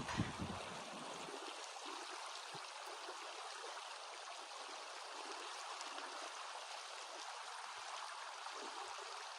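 Steady rush of the Rio Grande's flowing water, an even, unbroken wash of sound.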